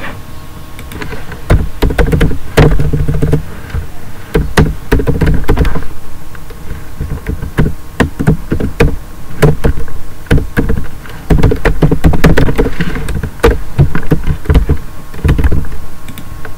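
Computer keyboard typing: irregular key clicks with heavier thuds among them.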